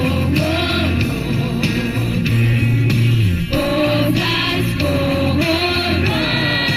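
Vocal ensemble singing a song in several voices over instrumental accompaniment with a steady bass line.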